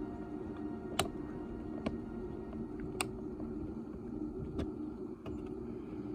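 A few sharp, light clicks and taps of small screws and plastic door-panel parts being handled, over a steady low hum.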